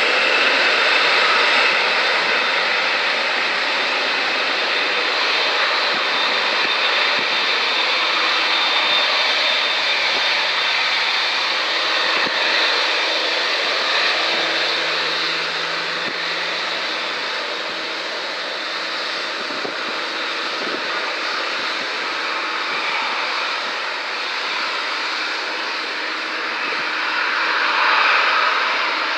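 Boeing 787-8 Dreamliner's twin turbofan engines running at taxi power as the airliner turns onto the runway: a steady jet rush with a thin high fan whine, swelling louder near the end.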